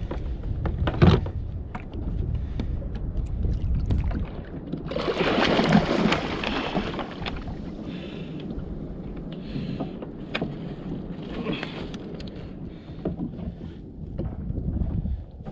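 Wind buffeting the microphone and water washing against a fishing kayak's plastic hull on open ocean, with scattered small clicks and a louder rush of water about five seconds in.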